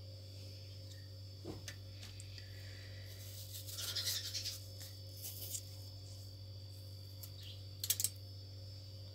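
Faint handling sounds as fruit slices are picked from a plate and laid on a cake: a light click, then rustling and scraping around four seconds in, and two sharp clicks near the end. A steady low hum sits underneath.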